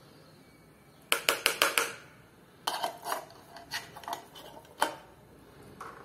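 Dishes clinking as a plate and utensils are handled: a quick run of about six clinks a second in, then single clinks every half second or so.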